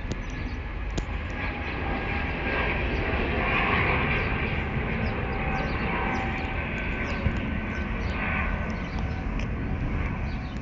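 Airbus A320neo (A320-251N) jet engines at take-off power as the airliner lifts off and climbs away: a steady jet rumble that swells a little about four seconds in.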